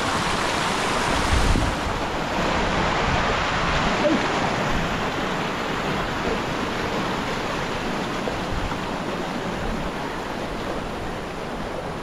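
Mountain river water rushing steadily.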